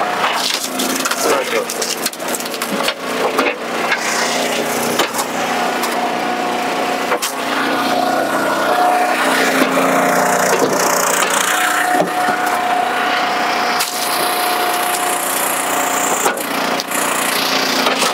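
Commercial hydraulic log splitter running steadily while its box wedge forces a knotty northern red oak log apart, with repeated sharp cracks and splintering of the wood over a steady machine drone.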